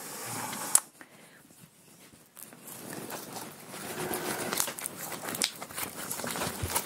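Homemade slime being kneaded and squeezed by hand, crackling with many small clicks. There is one sharp click under a second in, a short lull, then the crackling picks up again.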